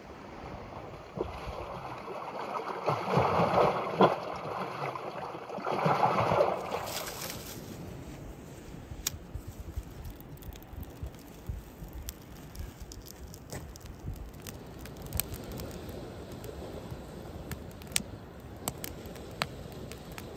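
Lake water lapping and sloshing against the shore in uneven surges. After about six seconds it gives way to a small twig-and-kindling campfire crackling, with scattered sharp pops over a quiet background.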